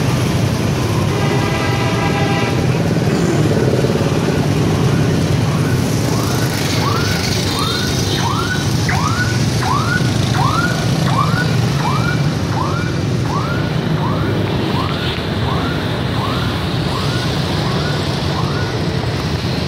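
Steady street-traffic rumble. From about five seconds in, a vehicle alarm sounds a repeated swooping chirp, about one and a half a second, fading a little towards the end.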